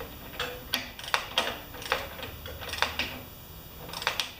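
Socket ratchet clicking in short, irregularly spaced strokes as it is worked back and forth, loosening the mower engine's spark plug.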